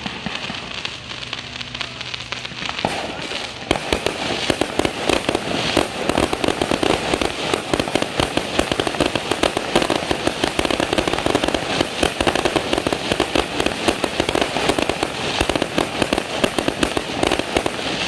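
Fireworks going off in a rapid, continuous crackle of bangs, becoming dense and loud about four seconds in.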